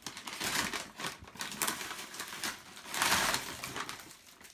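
Shiny metallic wrapping paper being torn and crumpled as a present is unwrapped: irregular rustling and crackling, loudest about three seconds in.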